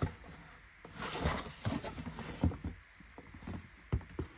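Cardboard box being handled and turned over in the hands: rustling and scraping of cardboard, with a few light knocks.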